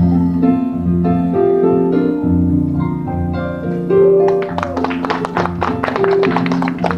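Live band music played on an electronic keyboard, with held notes and chords. About four seconds in, a quick run of sharp percussive clicks joins the music.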